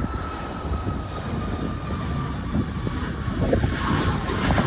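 Boeing 737 jet airliner's engines at takeoff power as it lifts off and climbs. A low rumble grows louder, with a whining tone that slowly falls in pitch.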